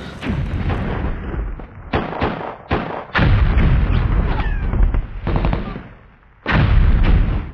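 Gunfire and explosion sound effects: a string of bangs with rumbling tails, several close together about two to three seconds in, and a longer loud blast near the end.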